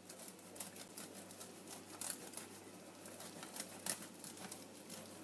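Faint, irregular light clicks and taps of kitchen utensils and cookware handled while béchamel is spooned over macaroni in a stainless steel tray, over a low steady hum.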